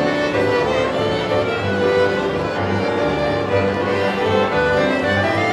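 A small live café orchestra playing, a violin carrying the melody over a band of clarinet, double bass, piano and accordion.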